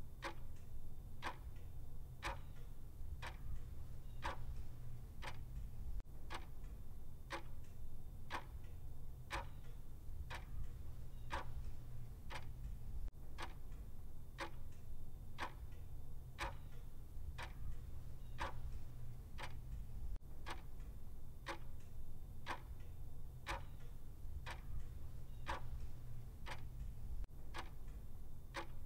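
Clock ticking with a steady, even beat over a low steady hum.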